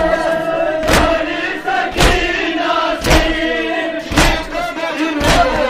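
A crowd of male mourners chanting in unison, with loud chest-beating (matam) strikes landing together about once a second.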